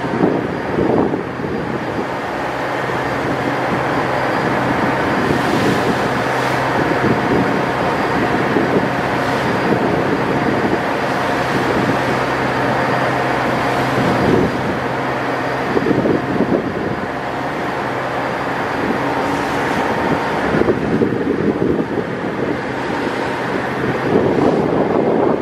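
Wind buffeting the microphone on a ferry's open deck, over the steady drone of the ship's engines. The buffeting is heaviest at the start and again near the end.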